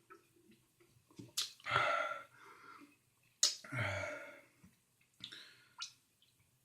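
A man's two loud, rasping gasps about two seconds apart, with softer breaths around them, right after he has chugged a 16 oz beer whose carbonation burns his throat.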